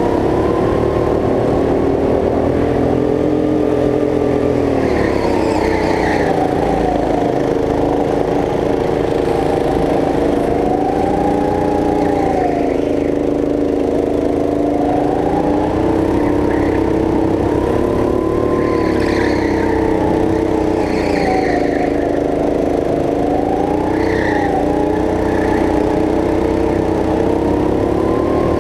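Go-kart's motor running hard from on board, its pitch rising on the straights and dipping into the corners again and again.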